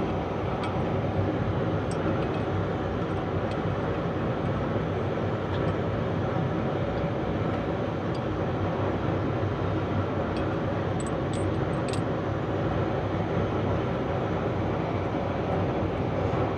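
A heavy-machinery engine running steadily, with a few faint metallic clicks.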